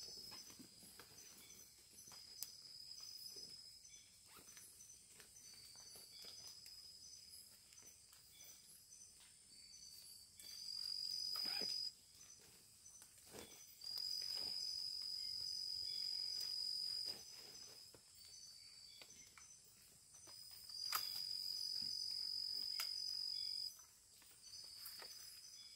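Insects singing: a steady high-pitched trill that swells into three louder spells of a few seconds each, over scattered faint clicks and rustles.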